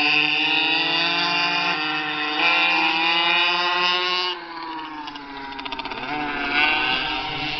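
Two Blata B1 minibikes running, their small two-stroke engines revving with the pitch rising and falling as the riders speed up and slow down. About four seconds in the sound drops away, then swells again briefly near the end.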